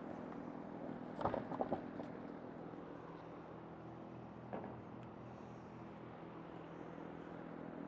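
Water-conditioner filters being changed by hand: a few light clicks and knocks from handling the filter housings and cartridges, over a steady low hum.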